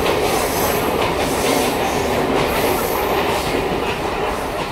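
Mumbai suburban electric local train running past alongside the platform: a loud, steady rumble of wheels on the rails with repeated clacks.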